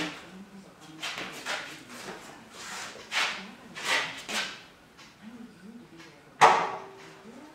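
Fat-tire e-bike being handled into a welded steel hitch rack: a run of scuffs and rattles, then about six and a half seconds in one loud metal clank that rings briefly as the bike knocks into the steel rack.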